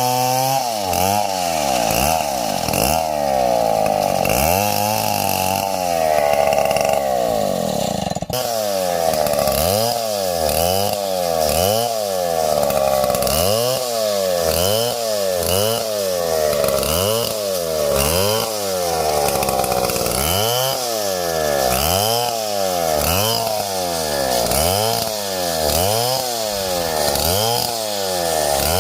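Two-stroke chainsaw running hard while cutting wood, its engine note repeatedly dropping and climbing back about once a second as the chain loads up in the cut and frees again.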